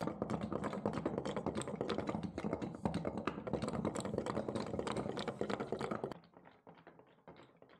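Rapid, irregular clicking and tapping of small hard objects, dense and steady, dropping suddenly to fainter, sparser clicks about six seconds in.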